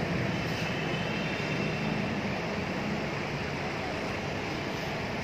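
Steady low rumbling background noise with a faint hum, with no distinct events.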